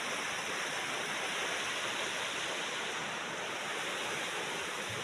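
River water rushing over rocks, a steady, even rush of flowing water.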